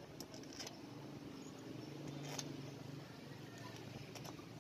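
A few faint metallic clicks and taps as bolts are set by hand into a motorcycle engine's crankcase, the loudest about halfway through, over a low steady hum.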